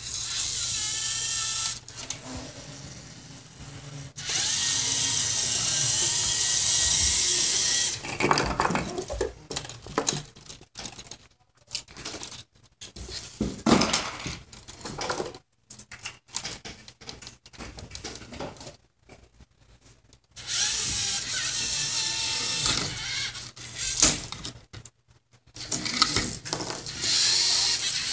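A LEGO competition robot's small electric motors whirring in bursts as it drives and works its attachments, with clicks and plastic clatter between the runs of motor noise and a few short pauses.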